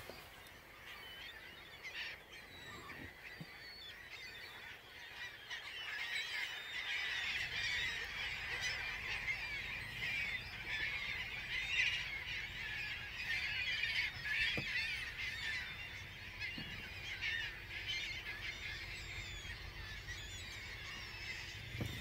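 A huge flock of gulls calling at once: a dense chorus of many overlapping cries that grows louder about six seconds in.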